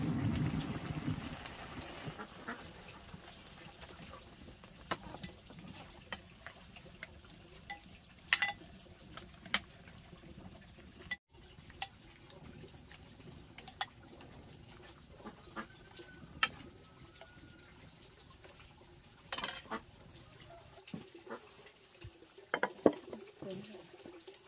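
Cabbage soup bubbling in a metal pan over a wood fire, then a metal ladle clinking and scraping against the pan and a ceramic bowl as the soup is served. Scattered sharp knocks of dishes follow, the loudest near the end.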